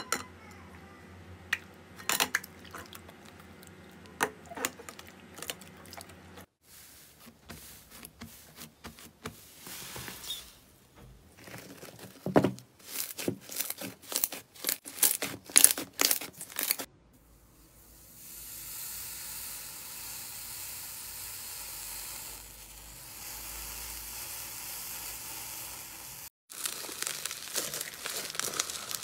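Hands squeezing, stretching and pressing slime. First come scattered wet clicks and splats, then a dense run of sticky popping clicks, then a steady hiss for about eight seconds, and crinkly crackling near the end.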